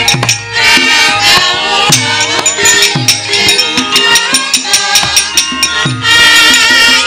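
Javanese gamelan accompanying a wayang kulit shadow-puppet scene: bronze metallophones ringing, low kendang drum strokes that drop in pitch, and frequent sharp metallic clacks of the dalang's keprak plates.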